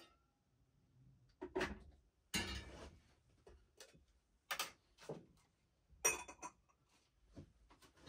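Kitchen clatter while making pour-over coffee: about six separate knocks and clinks of a mug, a small coffee container and a filter dripper being handled and set down on the counter.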